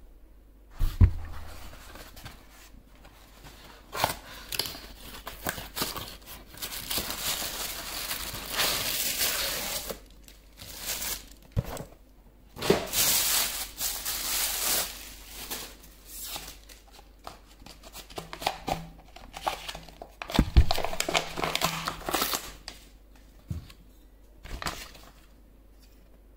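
Plastic bag crinkling and a cardboard box being handled and torn open while a boxed bottle is unpacked by hand, in irregular bursts of rustling with a few sharp thumps.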